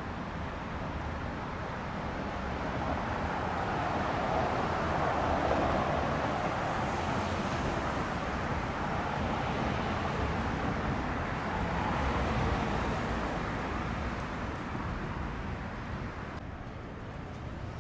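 Road traffic: vehicles passing by on the street, the noise swelling about five seconds in and again around twelve seconds in, over a steady low rumble.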